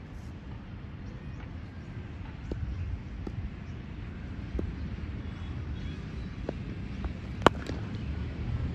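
Wind rumbling on the microphone, with a few faint ticks and one sharp crack about seven and a half seconds in.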